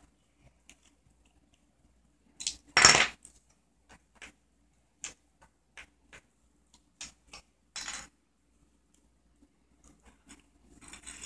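Small metal speaker parts and tools clicking and knocking against a wooden tabletop as a speaker is dismantled by hand, with one louder clatter about three seconds in.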